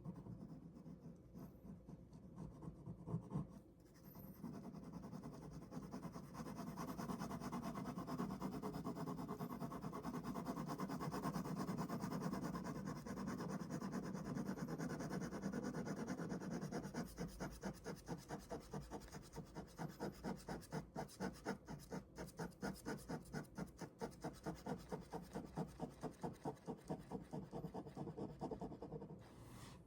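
Ballpoint pen scratching across paper as someone draws: continuous strokes at first, then quick, even back-and-forth strokes of about three a second, as in shading or hatching.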